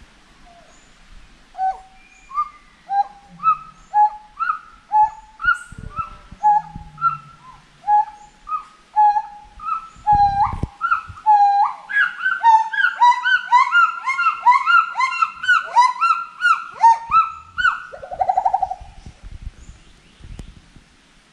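Gibbons singing together: a run of rising whoop calls, about one every half second, that builds about halfway through into a dense, overlapping chorus of several voices, then tails off near the end.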